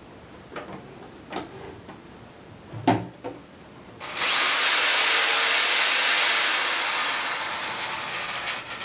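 A few handling knocks as an electric drill is plugged into a 12 V DC-to-AC power inverter. About four seconds in, the drill's motor spins up with a quick rising whine and runs steadily on the inverter's AC output, easing off a little near the end.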